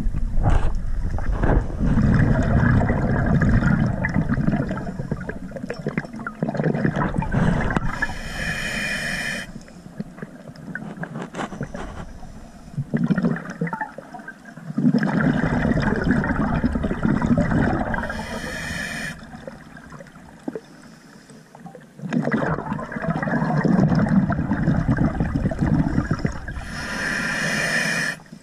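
Scuba diver breathing through a regulator underwater: a short hiss on each inhalation, then a long gurgling rush of exhaled bubbles, repeating about every nine to ten seconds for roughly three breaths.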